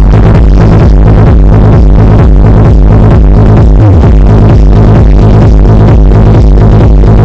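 Electronic dance music with a heavy, steady bass beat, played very loud through PA speaker cabinets driven by a Wave Master MT 1601 power amplifier during a sound check.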